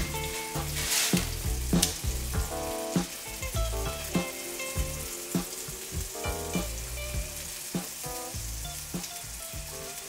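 Scallops sizzling in butter and oil in a hot skillet, a steady frying hiss. About a second in, a pepper grinder is twisted over the pan with a short gritty grinding.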